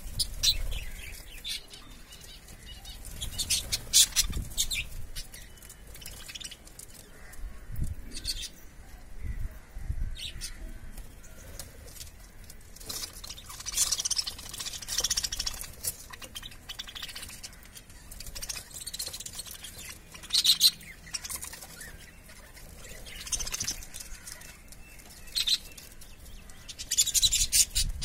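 Pet budgerigars chirping and chattering in scattered short high-pitched bursts, with occasional wing flapping.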